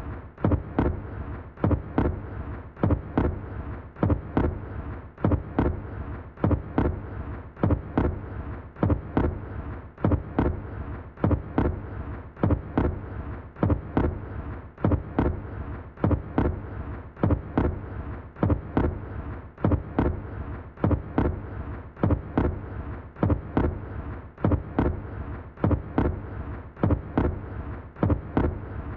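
A long, steady series of heavy thuds, struck in small clusters that repeat about every second and a half without a break.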